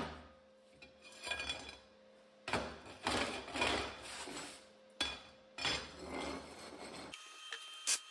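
Short bursts of harsh metal-on-metal noise from work on small steel pieces being welded to a forge table, four bursts of about a second each, followed by a sharp click near the end.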